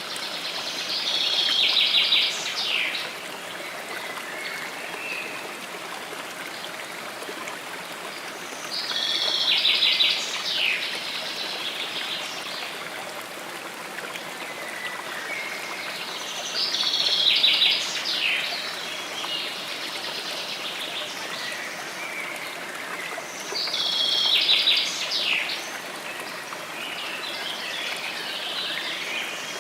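A songbird repeating the same song of about two seconds, a fast trill followed by a few falling notes, four times at intervals of about seven or eight seconds, over a steady rush of running water.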